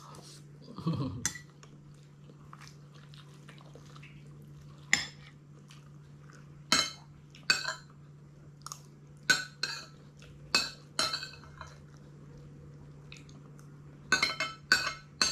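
Metal spoon clinking and scraping against a ceramic bowl of rice porridge as someone eats, in short irregular clinks that bunch together in the middle and near the end, over a steady low hum.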